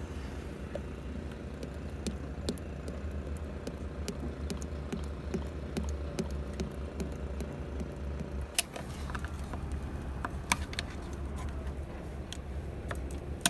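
Hydraulic oil glugging as it is poured from a plastic jerrycan into a funnel, over a steady low engine hum. The pour stops about eight and a half seconds in, and a few sharp clicks and knocks follow as the can is handled.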